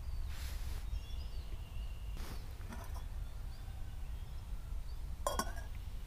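Quiet woodland background with faint bird chirps, and a single sharp clink of camping gear being handled about five seconds in.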